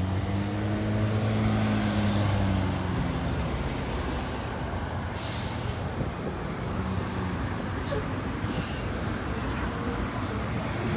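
Diesel transit bus engine running past, its note swelling and then falling away over the first few seconds, then steady street traffic noise with several short air-brake hisses.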